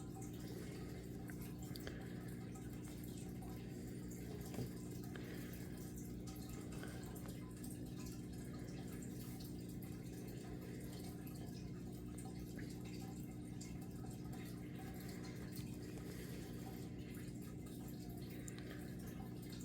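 A steady low hum with faint scattered ticks and light scratchy sounds.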